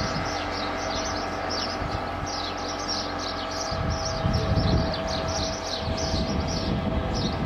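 Many small birds chirping together, a steady stream of short high chirps that fall in pitch, over a low rumble that swells about four seconds in.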